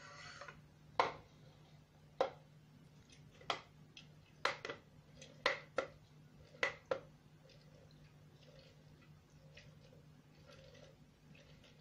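Orange halves being juiced by hand on a plastic citrus juicer: about eight sharp plastic knocks and clatters, some in quick pairs, as the juicer and the fruit are set down and pressed on the reamer. After them come softer, quieter sounds of twisting and squeezing the orange.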